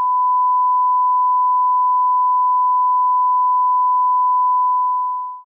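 Steady 1 kHz sine-wave reference tone played with the colour-bar test pattern, fading out shortly before the end.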